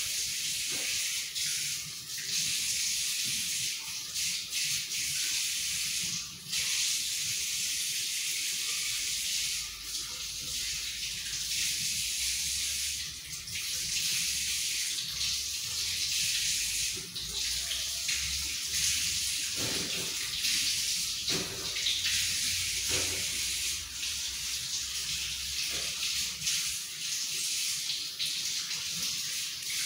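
Steady rain falling, an even soft hiss.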